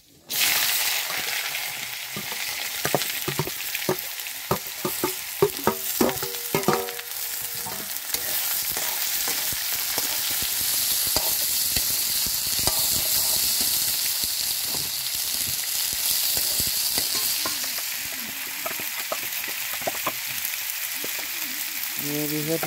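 Chopped squash dropped into hot oil in an iron wok, sizzling loudly from about half a second in. For the first several seconds a spatula scrapes and knocks against the pan as the squash is stirred, then the sizzle goes on steadily.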